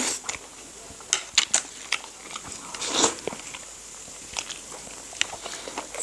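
Close-up eating sounds of spicy noodles and momo: chewing and biting, with scattered sharp clicks of utensils against bowls and a louder mouthful about halfway through.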